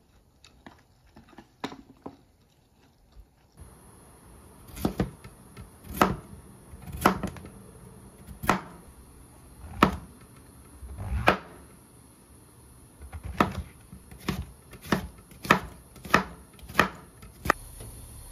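Kitchen knife slicing a white vegetable against a cutting board: a dozen or so sharp knocks, about one a second, coming quicker in the last few seconds.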